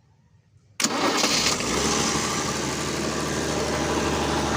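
Air compressor's engine starting up about a second in and then running steadily and loud.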